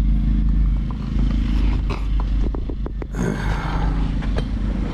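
A steady low hum with a few light clicks, the sound changing abruptly about three seconds in.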